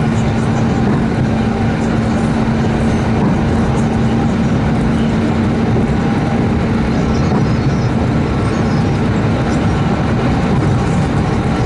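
ED9M electric multiple unit running past at about 120 km/h: a loud, steady rolling rumble of wheels on rails, with a low hum that fades about halfway through.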